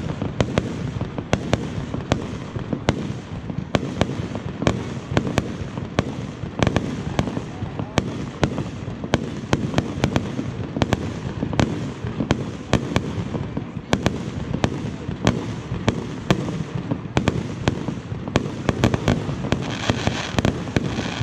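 Fireworks display: a rapid run of sharp bangs from shells bursting, several a second, over a continuous low rumble. A brighter hiss joins in near the end.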